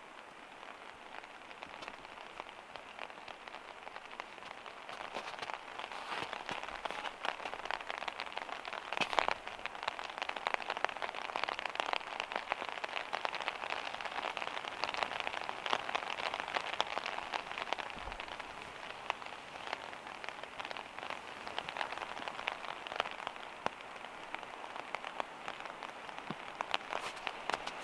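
Freezing rain pattering steadily on snow, a dense fine ticking that grows louder over the first several seconds and then holds.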